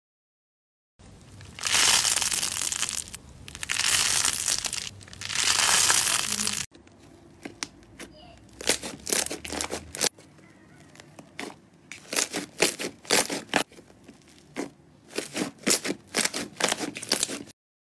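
Hands working thick slime. First come three long crinkly, crackling swells as it is stretched and pressed. Then, after a cut, a rapid run of short sticky pops and clicks as air pockets burst while it is squeezed and kneaded.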